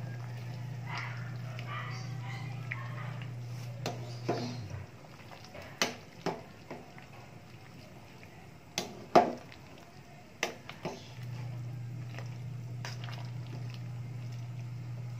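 Metal ladle knocking against the side of a large aluminium stockpot while stirring a stew: about eight sharp clanks over several seconds, the loudest about nine seconds in. A steady low hum runs underneath and drops out for several seconds in the middle.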